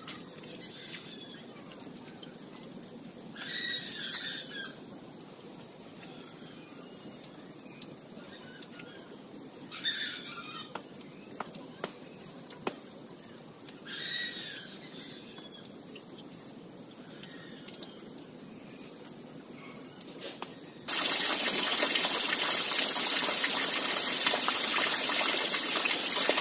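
A shovel scooping mud and water in a flooded ditch, with a few short splashes several seconds apart. Near the end, loud steady heavy rain takes over abruptly.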